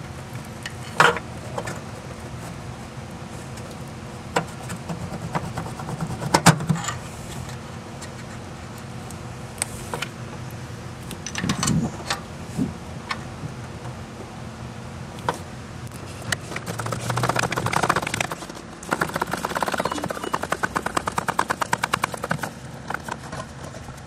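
Hand tools knocking and scraping on metal in an engine bay, then a ratchet wrench clicking rapidly for a few seconds near the end as a bolt is run down snug. A steady low hum runs underneath.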